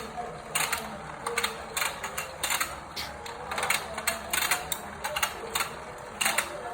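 Battery-powered toy fishing game running: its small gear motor hums while plastic parts click irregularly, one to two times a second.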